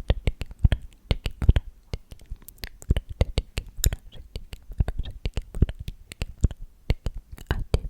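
Close-miked ASMR trigger sounds: a quick, irregular run of sharp clicks and pops, several a second.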